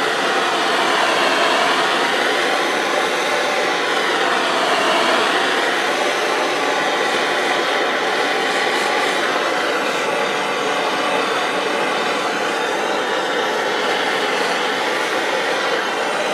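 Blowtorch flame hissing steadily as it heats the rifle's steel barrel, with the tone wavering slightly as the torch is moved along it.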